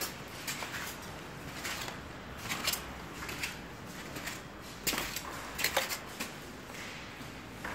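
Irregular plastic clicks and light taps as underfloor-heating pipe is laid and walked across studded insulation panels, with a few sharper clicks about five to six seconds in.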